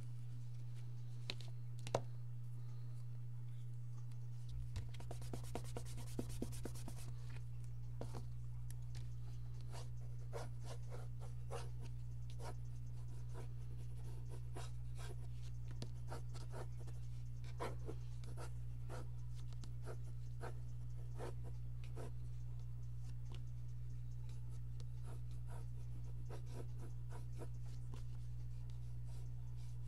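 Mechanical pencil sketching on paper: short, light scratchy strokes coming in runs, over a steady low hum. A single sharp click sounds about two seconds in.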